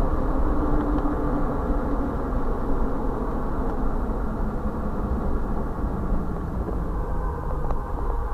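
Steady vehicle driving noise picked up by a dashcam: a continuous low rumble of engine and tyres on wet pavement.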